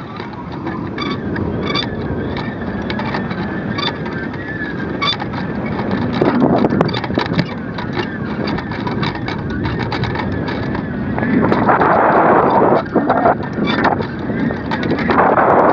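Wind buffeting the microphone of a camera hung from a kite, with many small clicks and rattles from the swinging rig. The gusts grow louder about eleven seconds in and again near the end.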